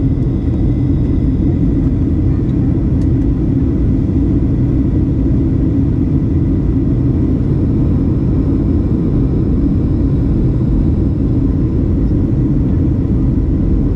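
Steady cabin rumble of a Boeing 737 airliner in flight, heard from a window seat: deep, even jet-engine and airflow noise, with a faint steady whine above it.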